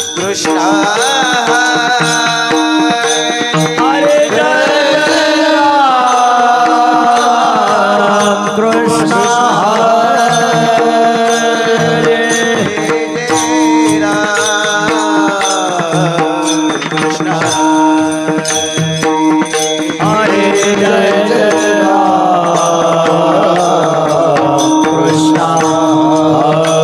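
Marathi devotional bhajan singing: a voice drawing out long, gliding melodic phrases over a steady held drone.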